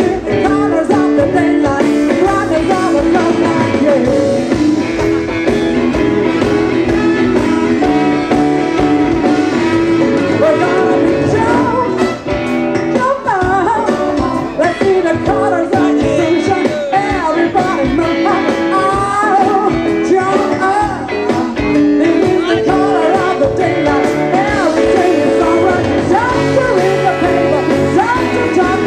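Live band playing a jazzy, soulful song with a medium beat: drums, guitar and a singer's voice.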